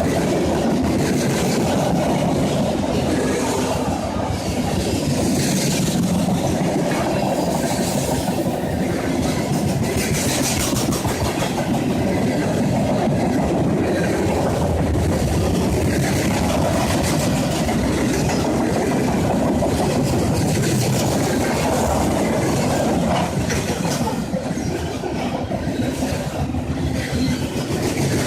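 Freight cars of a long train rolling past at speed, the wheels on the rails making a steady, continuous clatter.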